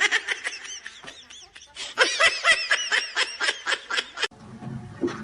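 A person giggling in a fast run of short, high-pitched laughs, about four or five a second, breaking off suddenly about four seconds in.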